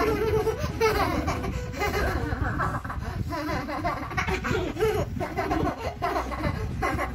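Two children laughing and giggling hard, a boy and a young girl.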